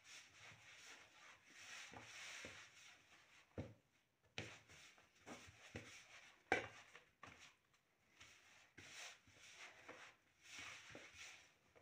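Hands kneading soft baklava dough in a plastic bowl: quiet rubbing and pressing, with a few sharper knocks, the loudest about six and a half seconds in.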